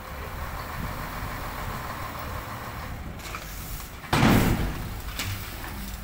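Tipper dump truck engine running while the raised bed empties its load of soil, with a sudden loud bang about four seconds in that trails off over about a second.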